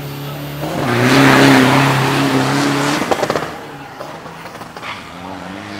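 Diesel pickup truck's engine at full throttle as it launches off the drag-strip start line. It is loudest for about two seconds, gives a few sharp cracks, then fades as the truck runs away down the strip.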